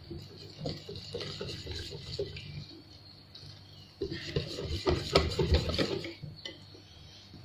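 A wire whisk stirring flour into a thin batter in a glass bowl, clinking and scraping against the glass with a wet slosh. The whisking picks up and gets louder about four seconds in.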